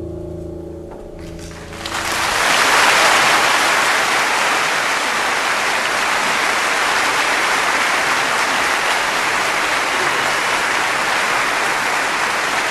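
A held closing chord from the orchestra and piano fades, then a large audience breaks into applause about two seconds in and keeps clapping steadily.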